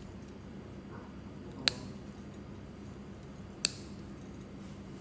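Two sharp snips of a metal nail nipper cutting through a thick, crumbly toenail, about two seconds apart, over a steady low hum.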